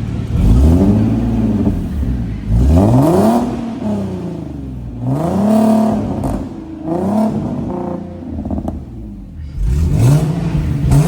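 A 2019 Nissan 370Z's 3.7-litre V6 is revved from idle about five times, each rev climbing and falling back, the fourth a short blip. The exhaust runs through resonated test pipes in place of the catalytic converters.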